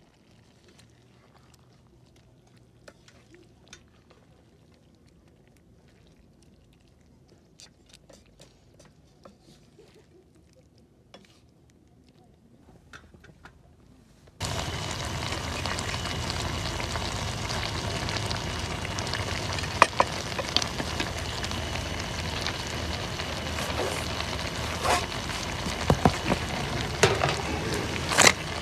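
Pork curry cooking in a pan on a portable gas stove, stirred with a wooden spatula. At first there are only faint scrapes and taps of the spatula. About halfway through a loud, steady hiss begins suddenly, with sharp knocks of the spatula against the pan toward the end.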